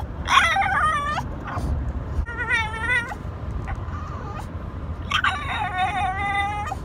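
French bulldog 'talking': three whining, howl-like calls that waver up and down in pitch, the last the longest and steadiest, with pauses between them.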